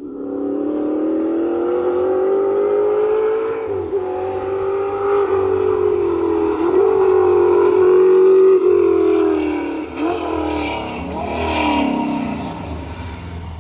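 Holden Torana rally car's engine at full throttle on a tarmac stage, approaching and passing close by. It comes in suddenly and holds a high steady note broken by a few brief dips, then falls in pitch as the car goes past near the end.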